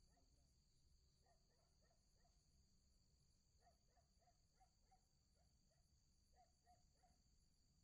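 Near silence at night: faint, steady high-pitched trilling of insects, with faint short animal calls in small clusters every second or two.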